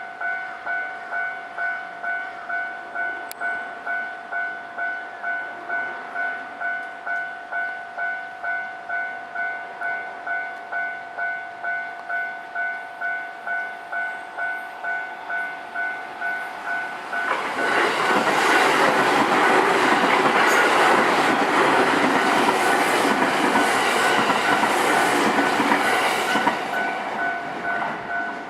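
Japanese level-crossing warning bell dinging in a steady, even repeating rhythm. About seventeen seconds in, a JR Osaka Loop Line train passes loudly for about nine seconds, with rhythmic wheel clicks, half burying the bell, which rings on alone near the end.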